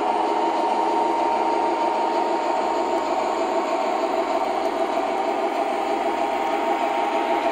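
O scale model train rolling along its track, a steady whirring rumble of wheels and motor with a constant thin whine running through it.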